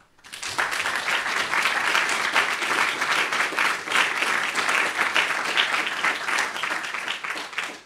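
Audience applauding, a dense patter of many hands clapping that breaks out a moment in, keeps up steadily, and dies away near the end.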